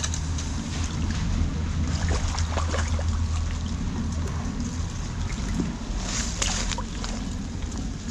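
Water sloshing and splashing close by, with scattered small splashes over a steady low rumble.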